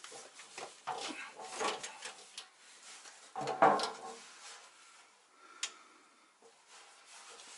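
A metal oil pan being lifted and fitted up against the underside of an engine block, with scattered knocks and scrapes of metal, the loudest clunk about three and a half seconds in and a sharp click a couple of seconds later.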